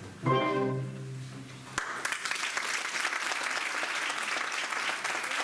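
A last held orchestral chord that cuts off a little under two seconds in. Audience applause breaks out at once and keeps going.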